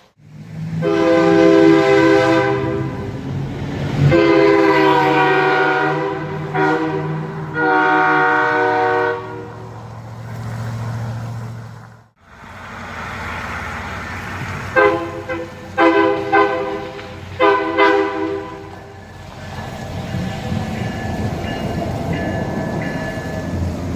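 An off-brand truck-mounted air horn, a knockoff of a Nathan K3LA train horn, sounding its multi-note chord: several long blasts, then three short blasts after a break. A lower steady rumble continues near the end.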